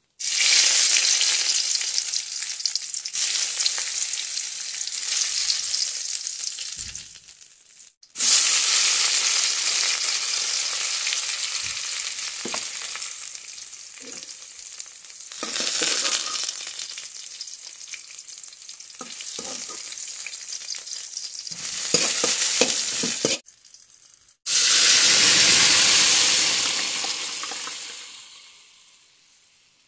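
Hot oil sizzling in an aluminium pan as a tadka for dal is fried: dried red chillies, garlic, seeds and tomato hit the oil. There are three loud stretches of sizzling, each starting abruptly and dying down, the last as the tempering meets the cooked dal.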